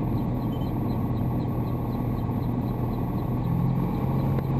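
Sting Sport light-sport airplane's Rotax 912 engine and propeller running at low taxi power, a steady drone that rises slightly in pitch about three and a half seconds in.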